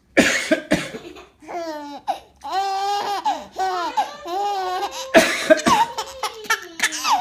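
A baby laughing hard in high-pitched, gliding peals, set off by a man's coughing; coughs break in at the very start and again about five seconds in.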